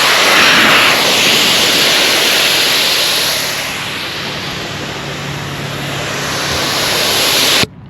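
Air hissing out of truck tires through a MORRflate multi-tire deflator during airing down. It is a loud, steady rush that eases a little in the middle and cuts off suddenly near the end, where the deflator pauses, as it does every couple of seconds.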